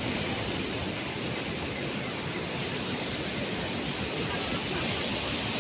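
Steady rushing noise of wind and surf on a sea beach, even throughout.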